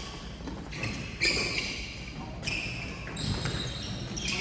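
Badminton rally in a large sports hall: sharp racket strikes on the shuttlecock, the loudest a little over a second in, with players' footwork on the court floor.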